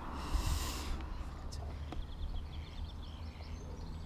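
Outdoor lakeside ambience: a steady low wind rumble on the microphone, a brief rustle about half a second in, and faint bird chirps in the second half.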